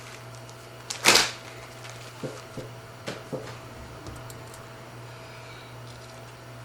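Small parts being handled on a workbench: a brief loud rustle about a second in, then a few light clicks and taps of plastic parts and screws, over a steady electrical hum.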